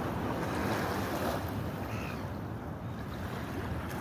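Wind buffeting the microphone over the wash of sea waves around rocks.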